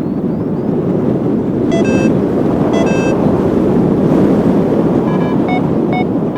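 Strong wind roaring on the microphone, with short electronic beeps from a paragliding variometer at several pitches: two pairs about two and three seconds in, and three more near the end. The beeping signals the glider climbing in rising air.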